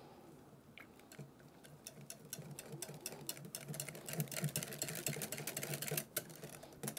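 Wire balloon whisk beating a thin batter in a glass bowl by hand: a fast, steady clicking and rattling of the wires against the glass with a wet slapping of the batter. It starts about a second in and grows louder.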